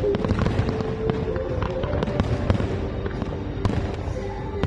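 Aerial fireworks bursting in quick succession: several sharp bangs and crackles a second over a continuous low rumble.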